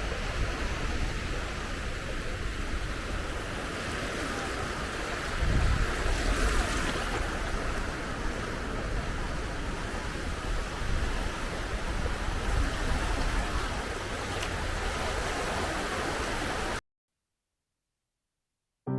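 Ocean surf washing on a beach, a steady rushing noise with one wave swelling louder about five seconds in. It cuts off abruptly near the end.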